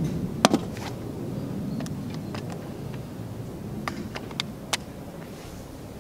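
Ruger 10/22 rifle being handled during a magazine change: a series of short, sharp plastic-and-metal clicks as the magazine is swapped, the loudest about half a second in and more around the middle and near the end. A steady low rumble runs underneath.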